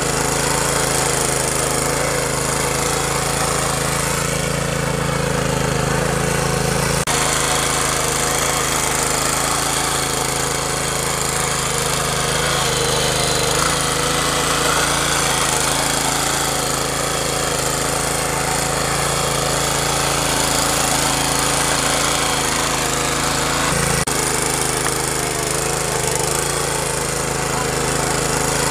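Small air-cooled petrol engine of a walk-behind power weeder running steadily under load while the tiller and its ridger attachment work through dry soil. The tone shifts abruptly twice, about seven seconds in and near the end.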